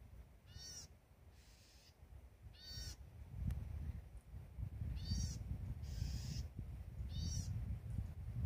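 A bird in the tree canopy giving four short, harsh calls about two seconds apart, over a low rumble that swells from about three seconds in and is the loudest sound by the end.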